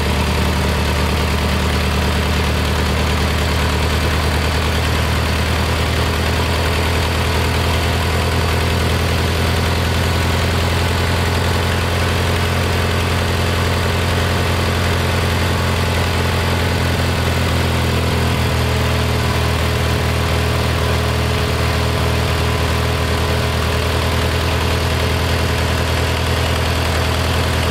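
Kohler Magnum 20 air-cooled twin-cylinder engine running steadily at idle on its freshly rebuilt carburetor. Its note shifts slightly about two-thirds of the way through.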